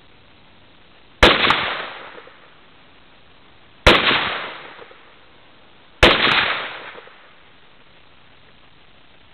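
Three single shots from an SKS semi-automatic rifle firing 7.62x39 mm Tula ammunition, about two and a half and then two seconds apart. Each bang trails off in an echo lasting about a second.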